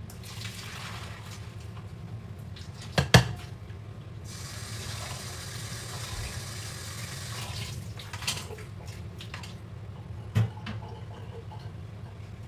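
Kitchen tap running into the sink while a pot is washed, the water running harder for a few seconds midway. Two sharp metal clanks of the pot against the sink, about three seconds in and again near ten seconds, are the loudest sounds.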